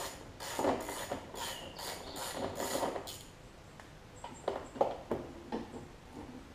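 Small socket ratchet with a 5/16 socket clicking in quick strokes, about three a second, as a bolt on a Briggs & Stratton Quantum mower engine's throttle linkage is backed out. After about three seconds the ratcheting stops and there are only a few light clicks and taps of the tool.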